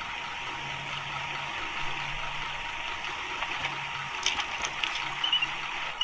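Steady rushing hiss, with a few sharp clicks and short high chirps near the end.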